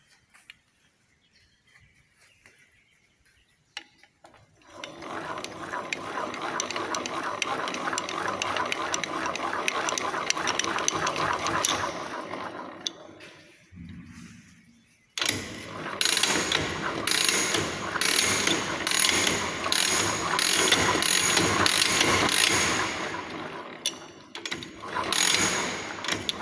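A sectioned TVS 50 two-stroke moped engine being turned over by hand: the spinning flywheel, crank and gears clatter with rapid clicking. The sound comes in two spells. The first starts about five seconds in and fades out. The second starts suddenly about fifteen seconds in and is louder.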